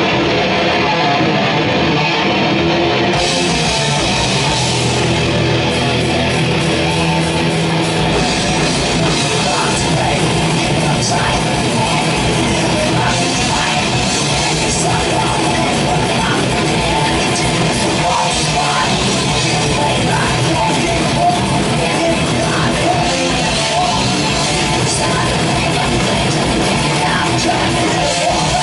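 Thrash metal band playing live, with distorted electric guitars. The sound fills out in stages as more of the band joins: brighter about three seconds in, and heavier in the low end about eight seconds in.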